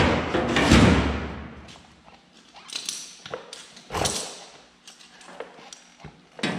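Thin steel wheel arch repair panel knocked and pressed into place against a pickup's bed side: a loud sheet-metal bang that rings on, a second one just under a second in, then lighter knocks and taps as it is worked into position.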